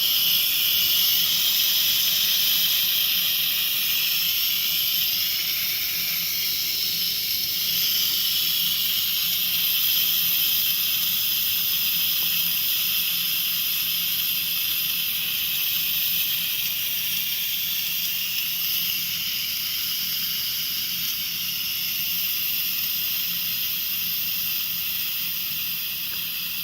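Instant Pot electric pressure cooker venting steam through its pressure release valve during a quick release: a loud, steady high-pitched hiss that eases off slowly toward the end as the pressure inside drops.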